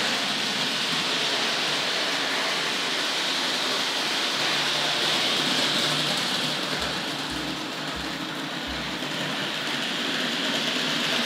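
Hornby Dublo A4 Pacific model locomotive with its horseshoe-magnet motor running along metal track, hauling two tinplate LNER coaches: a steady whirring rattle of motor and wheels, dipping slightly in the middle and rising again near the end.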